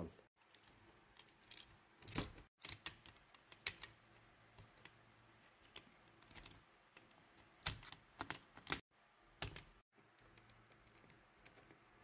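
Scattered light clicks and taps of plastic and small tools as the opened PS5 controller is handled, spaced irregularly over faint room tone.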